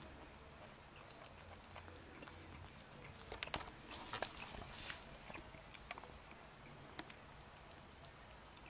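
A kitten eating soft food from a plate: faint, wet chewing and licking clicks, busiest about three to five seconds in.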